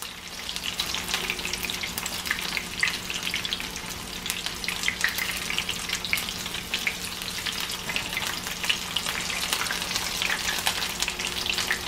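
Shrimp fritters shallow-frying in hot oil in a skillet: a steady sizzle with constant fine crackling pops.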